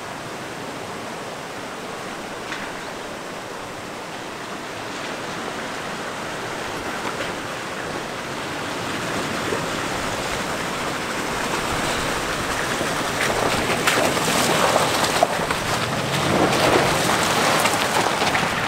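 Shallow creek water running, then a Toyota Tacoma pickup driving through it, its tyres splashing and knocking over rocks, the splashing growing louder as the truck nears and loudest in the last few seconds.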